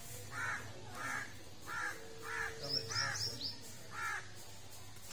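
A crow cawing six times in a row, a harsh caw about every half second, with a small bird chirping briefly in the middle.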